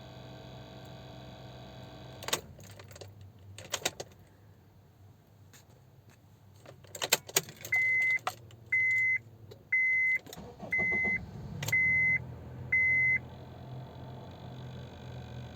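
Inside a 2006 Honda CR-V: a steady whirring hum, then clicks and keys jangling, then the car's warning chime beeping six times, about once a second. A low hum comes back near the end.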